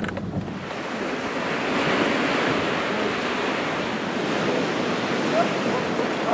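Sea surf breaking and washing over a rocky shore, swelling about two seconds in, with wind on the microphone.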